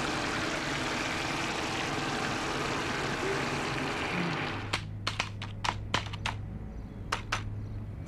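A steady rushing background noise, then from about halfway through, irregular taps on a computer keyboard being typed over a low hum.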